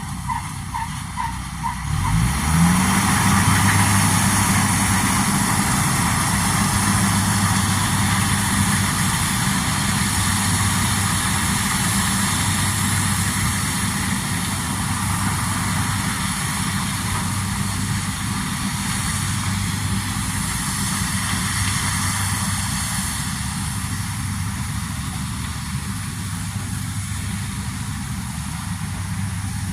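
A corn harvester's engine rises in pitch about two seconds in, then runs steadily under load with a broad mechanical rushing noise over it. A rapid electronic beeping sounds during the first couple of seconds.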